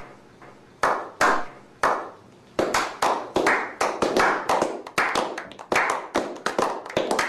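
A slow clap by a small group of men: single handclaps spaced about half a second apart at first, then coming faster and overlapping from about two and a half seconds in as the others join.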